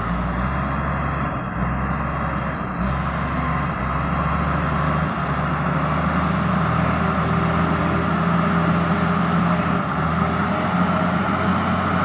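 Wheel loader's diesel engine running steadily as the machine works in a shallow river, with a steady rush of flowing water.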